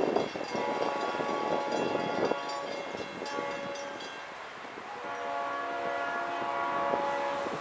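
Freight locomotive air horn sounding two long blasts as the train approaches a grade crossing: the first lasting about two seconds near the start, the second coming in about five seconds in.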